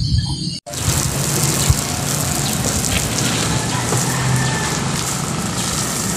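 Water spraying in a steady hiss onto a concrete road, starting after a brief cut-out about half a second in.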